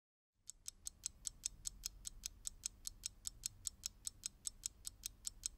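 Mechanical wristwatch ticking, faint, evenly about five ticks a second, starting about half a second in.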